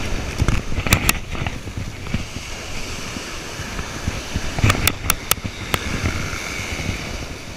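Surf washing on the beach with wind on the microphone during a surf cast. A few sharp clicks about a second in, and a cluster of clicks around five seconds in from the rod and the PENN No. 77 Sea Hawk direct-drive reel as the cast is made.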